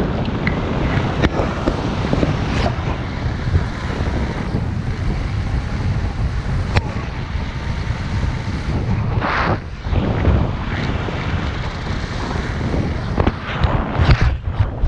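Airflow buffeting a camera microphone during paraglider flight: a steady low rumbling rush with a few short crackles, and a brief louder gust about nine seconds in.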